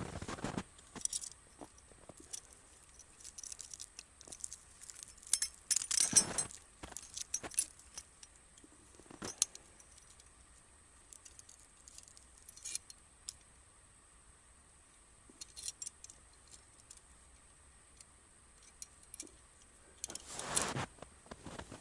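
Small metal objects clinking and jangling as they are handled, in irregular clusters with quiet gaps, with a brief rustle near the end.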